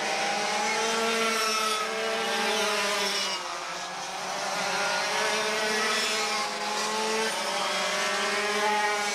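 Two-stroke dual-engine racing go-karts running hard, several high-pitched engine notes overlapping and sliding up and down in pitch as the karts pass through the turns. The sound dips about three and a half seconds in as the pack moves off, then swells again.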